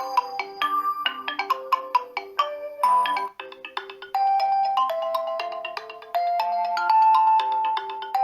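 Pre-installed ringtone melodies of a Xiaomi Redmi 7A phone: a quick melody of short mallet-like notes stops about three seconds in, and after a short break a second melody with longer held notes begins.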